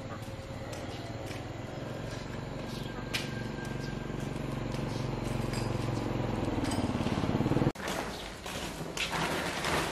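An engine runs steadily off-screen, growing slowly louder, then cuts off abruptly about three quarters of the way in. Then a woven plastic sack rustles and crackles as it is shaken open.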